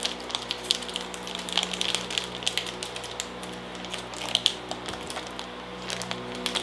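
Plastic chocolate-bar wrapper crinkling and crackling as it is peeled open by hand, in quick irregular crackles that are loudest about four seconds in.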